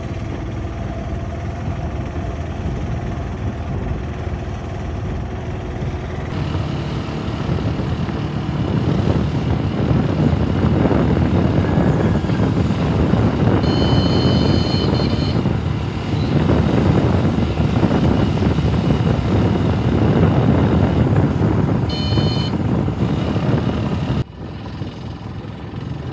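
A motor vehicle travelling along a road: steady engine, road and wind noise that grows louder about a third of the way in. A high-pitched horn beeps twice, once about halfway through and again near the end. The noise drops suddenly just before the end.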